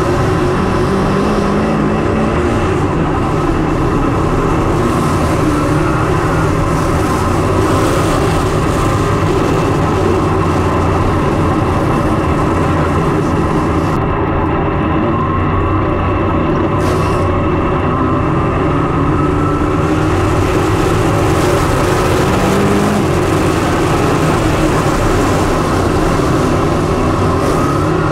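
Dirt late model race car engine running hard at steady high revs, one dense unbroken engine note with small rises and falls in pitch.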